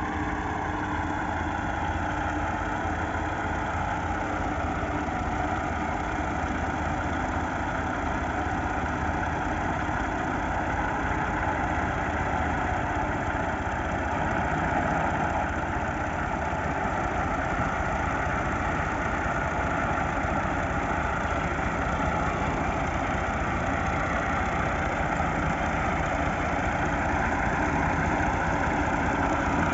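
Tractor diesel engines running steadily under load, pulling a heavily loaded sugarcane trailer, the engine note drifting slowly up and down in pitch.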